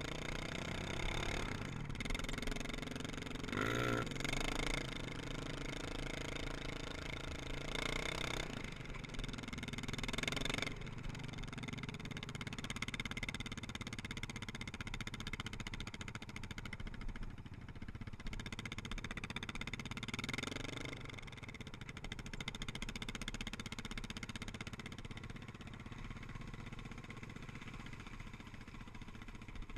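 Quad (ATV) engine running under way, its pitch rising and falling as the throttle opens and closes, with several brief revs.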